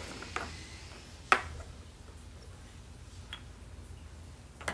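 Toy blocks being set down and knocked against each other on a table: four separate sharp clacks, the loudest a little over a second in.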